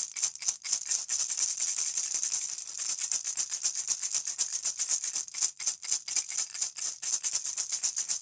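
Maracas shaking in a quick, steady rhythm: a dry, high rattle repeated several times a second.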